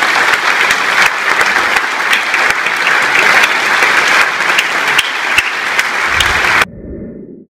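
Audience applauding: dense, steady clapping from a large crowd that cuts off abruptly near the end.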